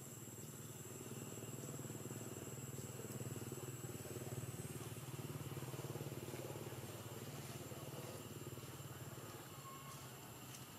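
Engine drone of a passing motor vehicle, swelling over several seconds and then fading away.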